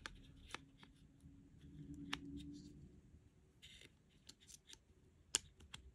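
Faint clicks and rattles of AAA batteries being fitted into the plastic battery compartment of a Petzl Actik Core headlamp, with a few sharper clicks as they seat.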